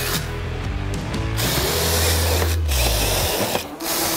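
Cordless drill-driver driving a screw through PVC trim into a door frame. The motor runs under load and stops a little after three seconds in, then starts again near the end for the next screw.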